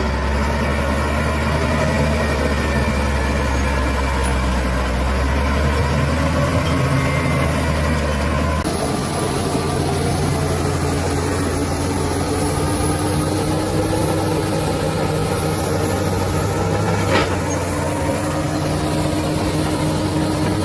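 Bulldozer's diesel engine running steadily, its tone changing abruptly about eight seconds in, then its pitch creeping slowly upward. A single short click a few seconds before the end.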